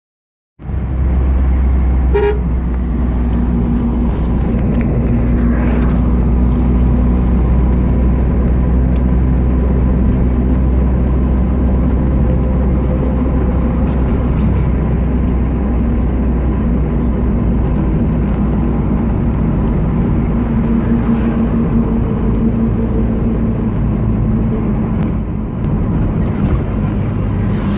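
Car engine and tyre noise heard from inside the cabin while driving on a highway: a steady low drone that starts about half a second in, with a short horn toot about two seconds in.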